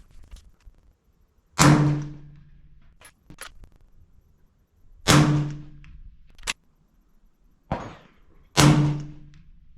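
Three suppressed shots from a 6.5 Creedmoor Sig Sauer Cross bolt-action rifle fitted with a Tatanka 36-cal silencer, spaced about three and a half seconds apart, with short metallic clicks of the bolt being worked between shots.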